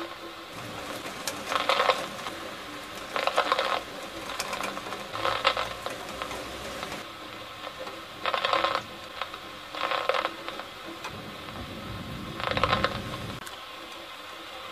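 Gusts of rain striking the window glass in short clattering bursts, six of them about two seconds apart. A low rumble of thunder comes in about eleven seconds in and lasts a couple of seconds.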